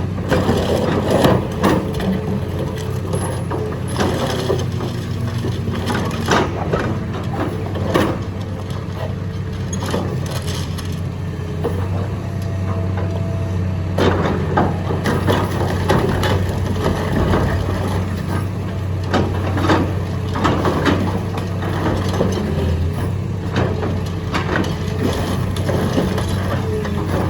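Excavator engine running steadily under the cracking and crunching of concrete being crushed, with sharp cracks scattered throughout.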